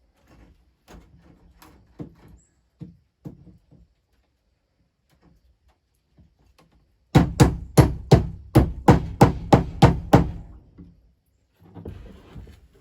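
Hammer nailing wood trim: a few light taps, then a quick run of about a dozen sharp blows, about four a second, a few seconds in.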